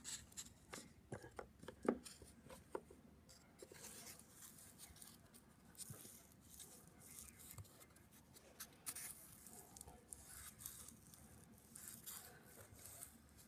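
Faint handling noise of hand-carved wooden pliers being turned and worked: scattered small clicks and soft rustles.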